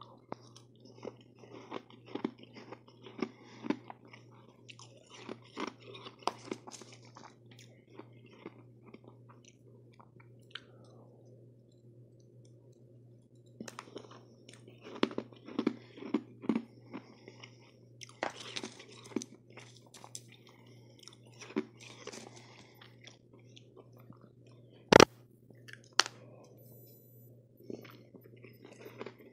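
Close-up crunching and chewing of powdery freezer frost and crushed ice, in bursts of crackly crunches with pauses between mouthfuls. A single sharp click near the end, louder than the rest, over a steady low hum.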